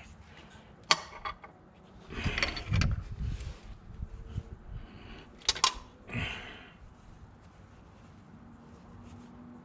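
Hands and tools working around a diesel truck engine: a sharp metallic click about a second in, bursts of rustling as a rag is rubbed over a part, and a couple more sharp clicks around the middle.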